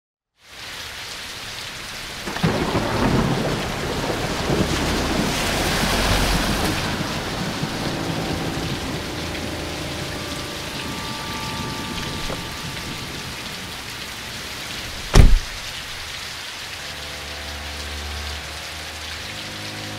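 Steady rain falling, with a long roll of thunder swelling a couple of seconds in and fading. About three-quarters of the way through comes one very loud, sharp thunderclap. Faint low steady tones join the rain near the end.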